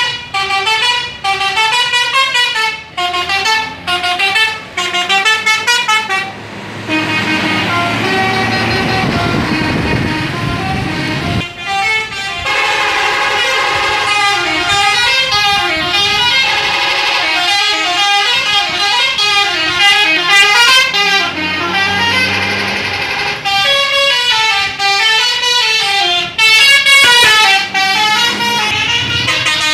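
Bus telolet horns, multi-trumpet musical horns playing fast tunes that step up and down in pitch. They sound in short repeated bursts at first. A passing bus's engine and rushing noise fill a few seconds in the middle, then the horns play almost without a break in overlapping tunes.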